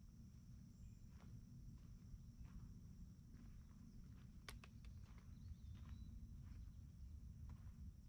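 Faint footsteps on a forest trail at walking pace, about one to two steps a second, with one sharper click about halfway through, over a steady high hiss.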